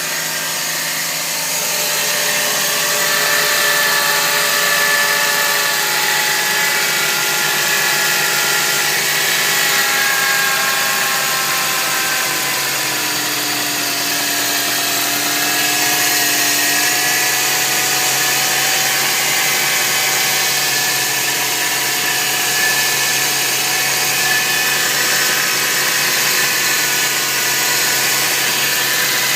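Scion xA's 1.5-litre four-cylinder engine running, with a strange sound from the engine area: several whining tones that drift slowly up and down in pitch over a steady hiss. The cause is unknown to the owner.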